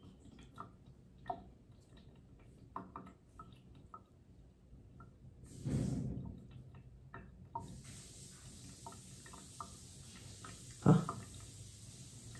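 Bathwater dripping and sloshing in a tub as a wet kitten is washed by hand: scattered small plinks of drops, a slosh about six seconds in, then a steady hiss of running water starting about halfway through. A loud thump comes near the end.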